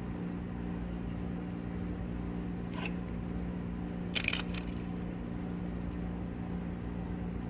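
Steady low hum with two light clicks of a pistol being handled: a faint one about three seconds in and a sharper, louder short rattle about four seconds in.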